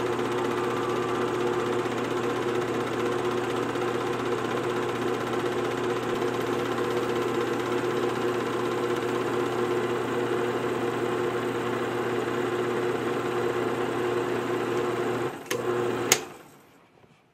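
Home-movie film projector running with a steady mechanical whirr and hum. Two clicks come near the end, then the whirr dies away.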